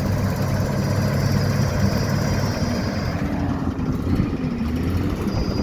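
Heavy diesel engine of road-paving machinery running steadily with a low drone.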